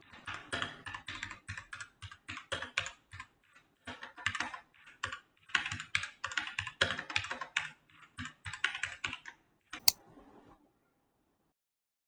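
Typing on a Portronics Hydra 10 mechanical keyboard with brown switches: quick runs of key clicks broken by short pauses. It ends with a single sharp click about ten seconds in.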